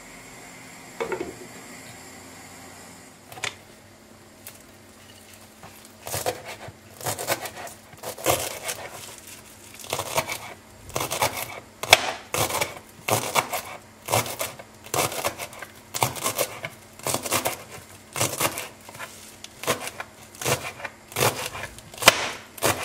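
A glass pan lid set down on the pot with a knock about a second in. Then, from about six seconds, a knife chopping fresh herbs on a plastic cutting board, steady cuts about two a second.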